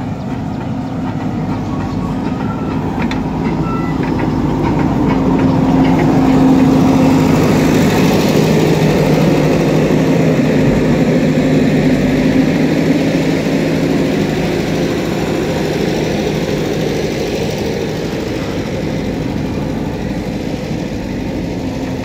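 Diesel engines of a JCB 3DX backhoe loader and a farm tractor running in a steady hum, growing louder towards the middle and easing off again. A few light clicks sound in the first few seconds.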